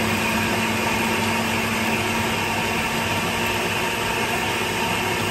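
Countertop food processor running steadily, its motor and blade whirring as it purees a thick mixture of roasted tomatoes, nuts, herbs and cheese into pesto.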